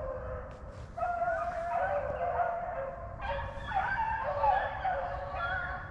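A pack of rabbit hounds baying on a rabbit's trail: several long, overlapping voices sounding at once, growing louder about a second in. This is the chase cry of dogs running a rabbit by scent.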